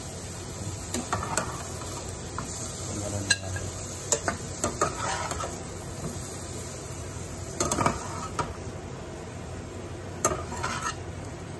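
Spatula scraping and clinking against a nonstick pan in irregular strokes as sautéed broccoli is scooped out onto a plate, over a faint steady sizzle from the hot pan.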